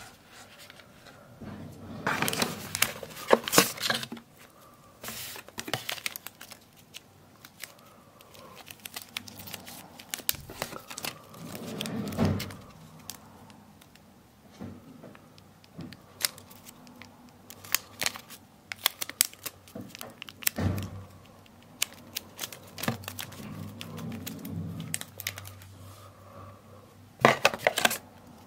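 Clear plastic packaging film crinkling and rustling as it is handled, in irregular bursts with scattered clicks and taps, loudest about two to four seconds in and near the end.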